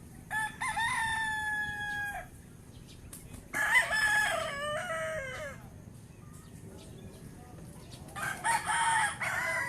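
Roosters crowing: three long crows a few seconds apart, the second falling in pitch at its end, the third starting near the end.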